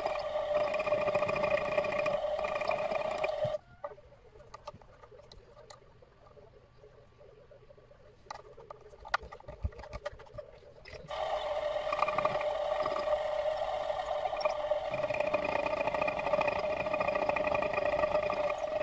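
Small milling machine's motor running with a steady whine. It stops about three and a half seconds in, a few light clicks follow, and it starts again about eleven seconds in.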